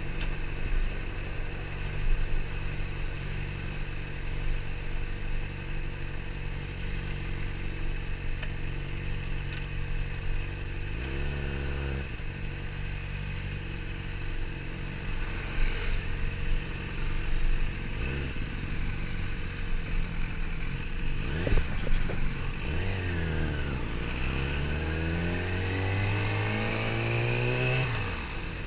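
Yamaha R6 inline-four engine pulling at low speed while filtering through traffic. There are short blips of the throttle about a third of the way in, again about two-thirds in and a little later. Then the revs climb steadily over the last five seconds and drop away just before the end.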